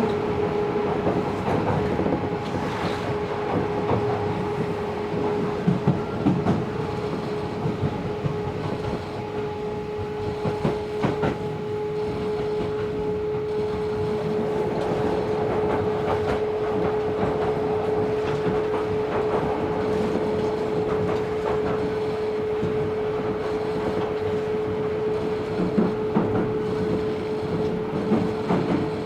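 Interior running sound of a Tobu 70000 series electric train under way: wheels rolling on rail with a steady hum held at one pitch, and a few sharp clacks over rail joints.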